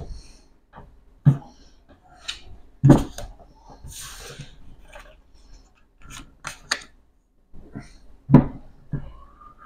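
Playing cards being handled and laid down on a tabletop: a series of sharp taps and slaps as cards hit the table, with a brief rustle of cards sliding about four seconds in.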